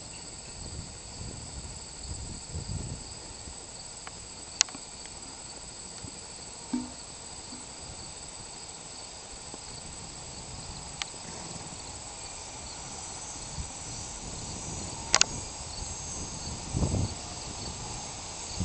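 A steady high-pitched chirring chorus outdoors, with a few sharp clicks, the loudest about fifteen seconds in, and some low thumps.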